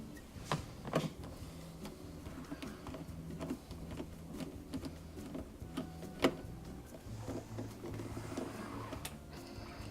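Reassembly of a dishwasher's control panel: scattered sharp clicks and knocks of tools and panel parts over a faint low hum, with the loudest click about six seconds in.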